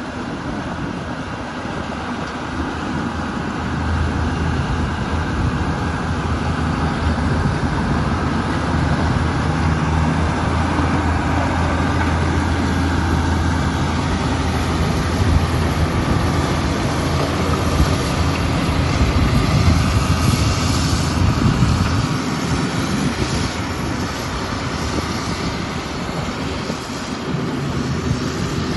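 Champion 720VHP motor grader's diesel engine running steadily as the grader drives over gravel, growing louder after a few seconds and easing off near the end.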